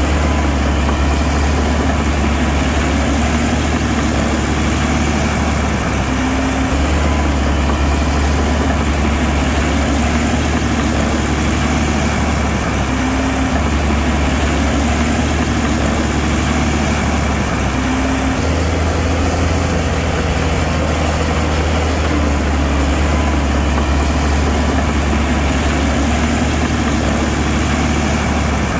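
Heavy diesel engine of a bulldozer or dump truck running steadily, a constant low drone, with a few abrupt shifts in its low tone.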